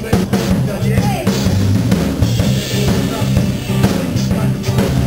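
Music: a drum kit playing under a bass line that steps from note to note.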